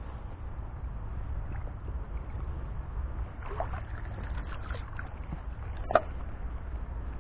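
Steady low wind rumble on the microphone while a magnet-fishing rope is handled with gloved hands. There is some rustling and scraping in the middle and a single sharp click about six seconds in.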